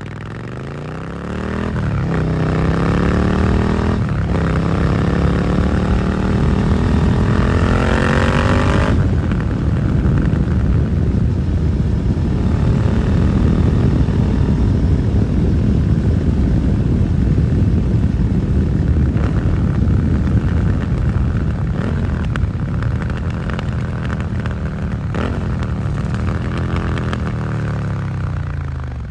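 Suzuki SV650's V-twin engine through an aftermarket Dominator GP exhaust, accelerating hard with the revs climbing and gear changes about two and four seconds in. It then cruises with heavy wind noise, and the revs fall as the bike slows near the end.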